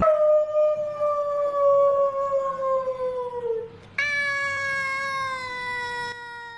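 Cat yowling: two long, drawn-out calls, each slowly falling in pitch. The second starts about four seconds in and fades away.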